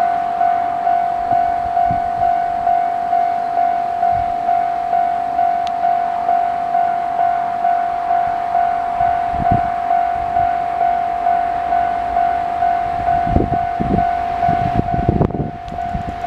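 Japanese level-crossing warning bell ringing, an evenly repeated single electronic tone a little faster than once a second. Low thumps and rumble come in near the end.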